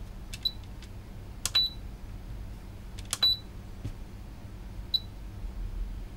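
Aifen A9 Pro soldering station's front-panel buttons clicking, each press answered by a short high beep from the station, four times over about five seconds, as the iron's set temperature of 380 °C is entered.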